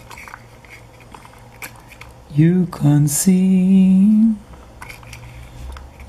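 Light clicks of a toy horse trailer and tractor being handled. About two seconds in, a man's voice makes a few wordless held notes, the last one long and ending on a slight rise.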